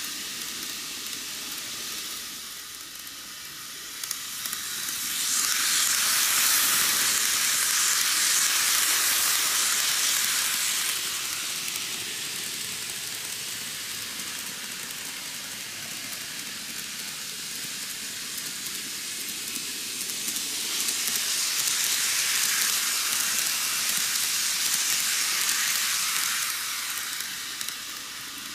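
N-gauge model train running round a loop of curved track: a steady whirring hiss of its motor and wheels on the rails. It swells twice as the train passes near and drops back while it is on the far side of the loop.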